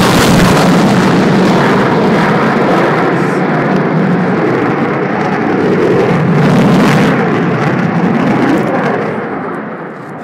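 Military jet passing overhead: a loud, steady engine roar that fades off near the end as the jet flies away.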